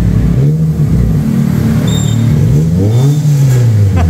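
Nissan Livina's engine revved in repeated blips through a trial aftermarket muffler held by hand against the tailpipe, the exhaust note rising and falling in pitch about three times as the throttle is opened and released.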